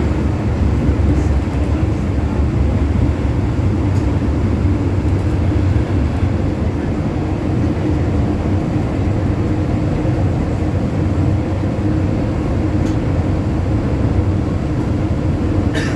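MTR M-Train electric multiple unit running at speed through a tunnel, heard from inside the car as a steady, loud rumble of wheels and running gear, with a few faint ticks.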